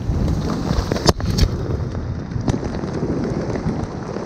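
Aftermath of a large tannerite explosion in a beaver dam: a heavy rumble fading slowly as mud, rocks and wood rain down, broken by sharp cracks and thuds, the loudest about a second in.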